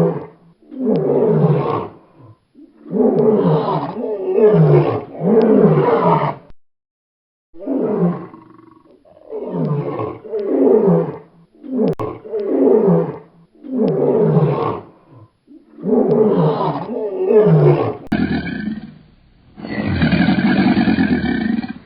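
Lion roaring: a series of deep calls, each about a second long and falling in pitch, coming in bouts with short pauses. Near the end a different, steadier sound from another recording takes over.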